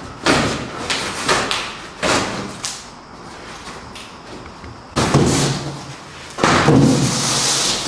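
Stiff cardboard flaps and panels of a large shipping box being pulled open and folded back. About four sharp knocks and thumps in the first three seconds, then two louder bouts of thumping and scraping, and a hissing scrape and rustle near the end.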